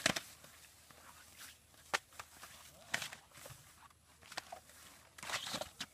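Quiet, scattered soft thumps and rustles of a baby elephant stepping on grass and tugging at a plastic ribbon with its trunk, with a brief burst of rustling near the end.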